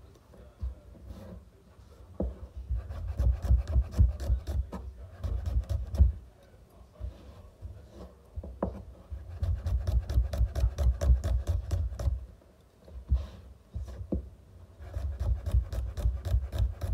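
Chef's knife chopping garlic cloves on a cutting board: quick runs of knife knocks against the board, several a second, broken by short pauses.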